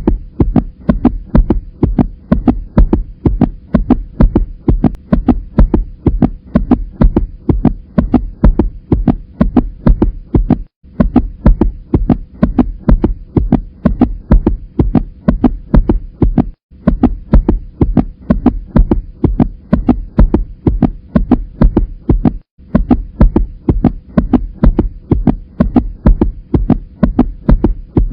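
Heartbeat heard through a stethoscope: a steady run of low beats over a faint hum. It cuts out for an instant three times.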